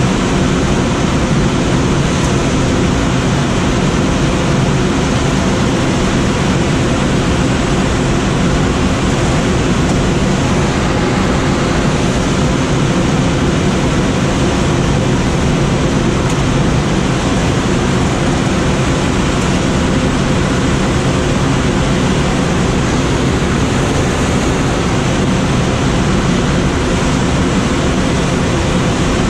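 Steady rushing airflow noise in the cockpit of a Schweizer SGS 2-32 glider in flight: a loud, even rush with no clear tones or breaks.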